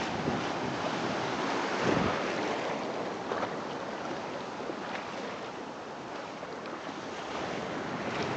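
Surf washing onto a sandy beach, a steady rush of waves with some wind on the microphone, and one louder surge about two seconds in.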